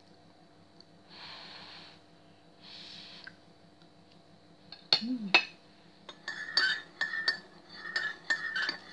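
Two soft breaths out in the first few seconds. Then, from about six seconds in, a metal fork clinks and scrapes against a plate in a quick run of ringing taps as boiled sweet potato is cut and picked up.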